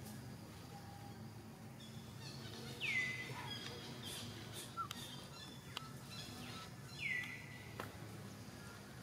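A bird calling twice, about four seconds apart. Each call is a short note that slides down in pitch and levels off, heard over a steady outdoor background hum.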